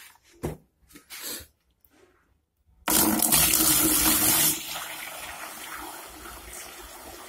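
A few faint knocks, then about three seconds in a stream of water suddenly starts pouring and splashing into an empty plastic tub. It is loud at first, then after about a second and a half it settles to a softer, steady pour.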